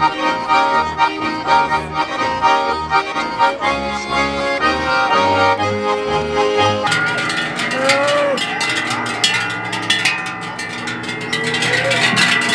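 Three Swiss button accordions (Schwyzerörgeli) and a plucked double bass playing a lively folk tune. About seven seconds in, the sound changes to the clanging of large cowbells on passing cows, with the accordion music still behind.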